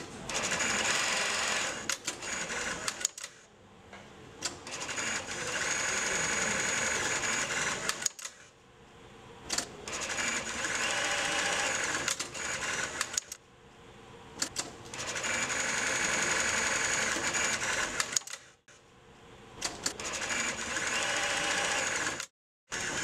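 Golden Wheel CS-8881BFT post-bed industrial sewing machine stitching, running in about five bursts of a few seconds each, with short pauses and clicks between the runs.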